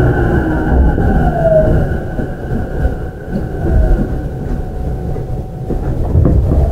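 Running sound inside an E233-7000 series electric train's motor car: wheels rumbling on the rail under the whine of the Mitsubishi IGBT VVVF inverter and traction motors. A whine slides down in pitch in the first two seconds over steady higher whine lines, and the sound eases for a moment about two to three seconds in.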